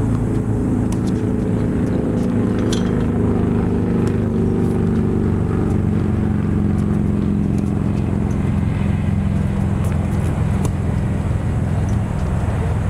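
A loud, steady engine drone that has built up just before and holds without a break. A few faint sharp tennis-ball strikes sound over it.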